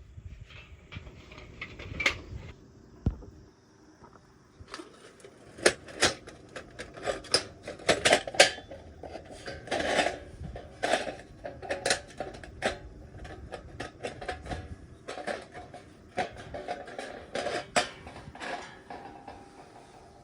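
Thin metal parts of a homemade folding fire stand clinking and clattering as they are handled. Irregular knocks and rattles, thickest in the middle of the stretch.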